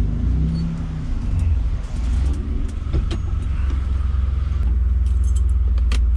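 BMW E36's M52 stroker 2.8 straight-six idling, a steady low drone heard from inside the cabin, with a couple of light clicks.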